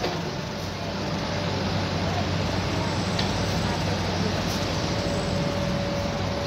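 Diesel engines of excavators and dump trucks running steadily, a continuous low rumble, with a faint thin whine joining in past the middle.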